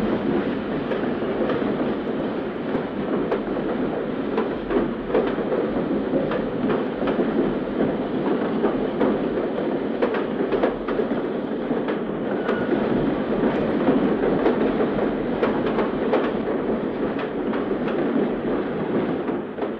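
Railroad train rolling past with the steady noise of the running train and its wheels clicking irregularly over the rail joints.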